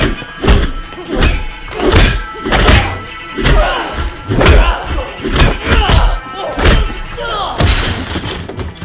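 Sound-designed fight hits: a fast run of heavy punch and strike impacts, roughly two a second, over action music.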